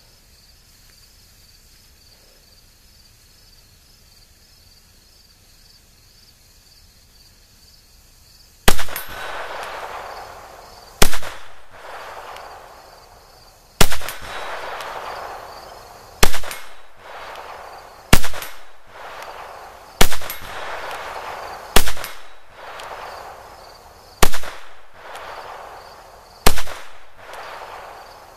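Smith & Wesson M&P 22 Compact .22 LR pistol firing nine single shots at about two to three second intervals, beginning after roughly eight seconds of quiet. Each shot has a long fading tail.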